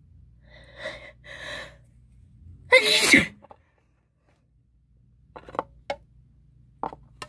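A woman's wet sneeze: two short voiced gasps build up, then one loud explosive sneeze about three seconds in. A few brief, sharp breathy sounds follow near the end.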